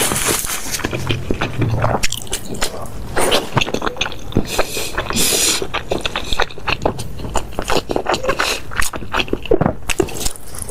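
Close-miked eating sounds: wet chewing and smacking of soupy noodles and tofu, with a brief slurp about five seconds in.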